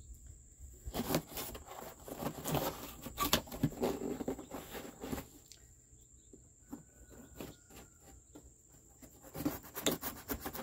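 Cardboard shipping box being handled and opened: rubbing, scraping and sharp knocks in bursts, with a quieter pause in the middle.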